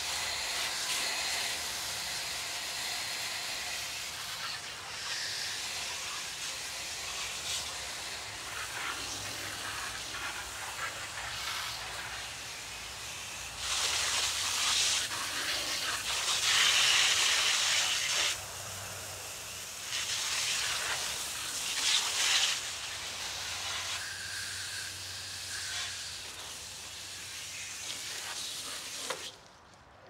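Water hissing from a garden hose spray nozzle as it rinses the coil fins of a Bryant air-conditioner condenser. The spray grows louder in spells around the middle and shuts off just before the end.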